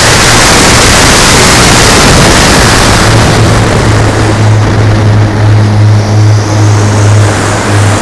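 Radio-controlled B-17G model aircraft's engines and propellers running, a steady low drone with a loud hiss over it that falls away after about three seconds.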